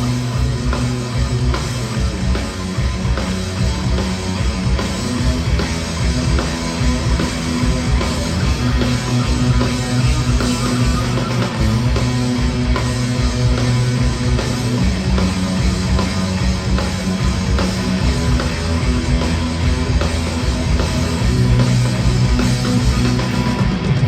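Rock band playing an instrumental passage with guitar and a drum kit, with no singing. Held low notes shift every few seconds under a steady beat.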